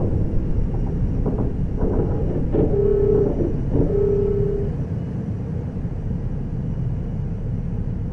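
Sound effect of a spaceship hatch opening over a steady low rumble: a few clicks, then two short hums at the same pitch about a second apart.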